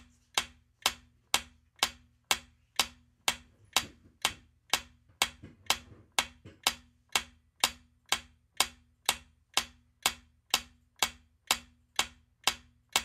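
Countdown timer sound effect: steady clock-like ticking, about two ticks a second.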